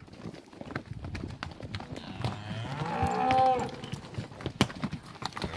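A Hereford cow lets out one drawn-out moo about two seconds in, rising and then falling in pitch. Hooves clatter on rocky ground throughout.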